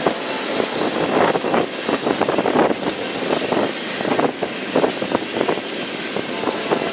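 Union Pacific freight train rolling past at close range: a steady rumble of boxcars and lumber-laden flatcars, with irregular clanks and knocks from steel wheels and couplers.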